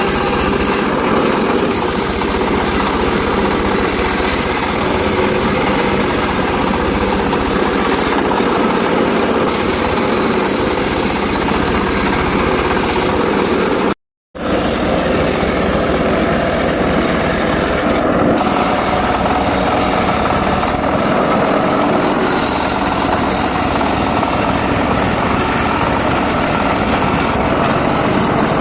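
Homemade circular-saw rig running steadily while sawing sengon laut timber, a continuous high-pitched machine noise. It cuts out for a split second about halfway through, then carries on.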